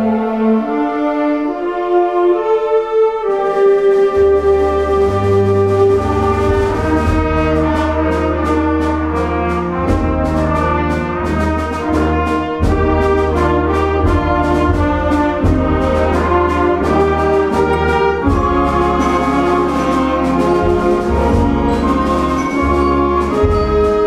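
Amateur concert band playing, brass to the fore. It starts with a lighter passage of held notes; about three seconds in the full band comes in with low brass and a steady beat.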